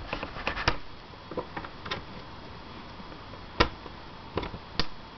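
Small clicks and scratches of a flathead screwdriver working a rectangular screw-cover sticker out of a laptop's plastic screen bezel, with a sharper click about three and a half seconds in.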